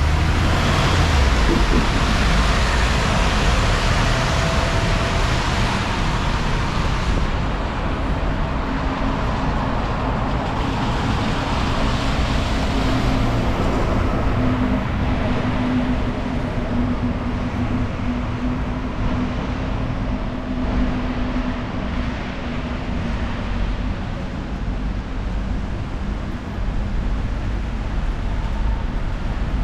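Busy city street traffic with vehicles passing, and wind buffeting the microphone in a heavy low rumble. A steady engine hum holds for about ten seconds in the middle.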